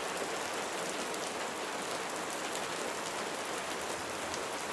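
Steady rain falling on a surface, a constant hiss with a fine patter of drops.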